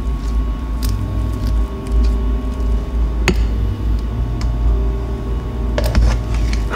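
A metal spoon stirring and scraping thick cooked mung bean paste in a non-stick frying pan. It knocks sharply on the pan about three seconds in and a few times near the end, over a steady low rumble.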